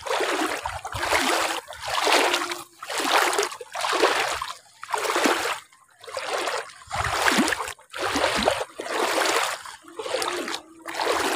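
Someone wading through shallow floodwater among rice plants, a splash with each stride about once a second.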